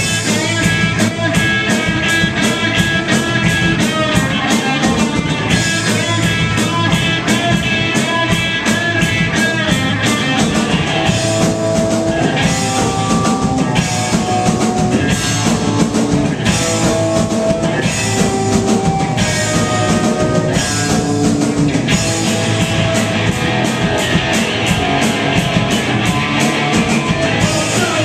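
Live rock band playing loudly: a drum kit driving a steady beat under electric guitars.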